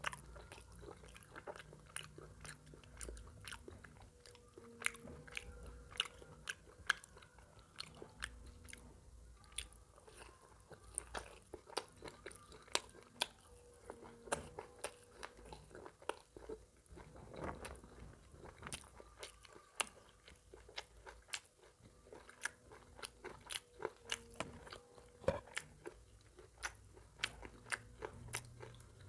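Close-miked mouth sounds of a man eating an Indian mutton curry and rice meal: chewing with frequent sharp, irregular crunchy bites and wet clicks and smacks, a few each second.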